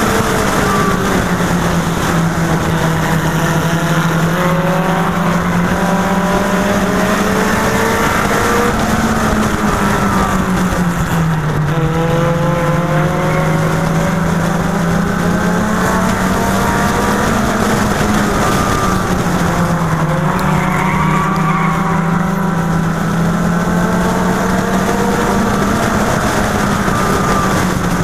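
Onboard sound of a Mini Stock race car's four-cylinder engine running hard under racing load. It is loud and steady, and its note dips and climbs back about every eight or nine seconds as the car laps the short oval.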